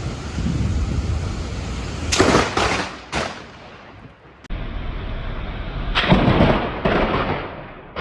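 Close lightning thunder: a low rumble, then several sharp cracks about two to three seconds in. After an abrupt break, more loud crackling blasts follow around six to seven seconds and again near the end.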